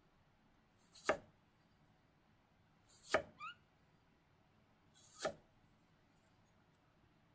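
Chef's knife cutting through apple pieces and knocking on a plastic cutting board: three slow, separate cuts about two seconds apart, the second followed by a brief smaller scrape.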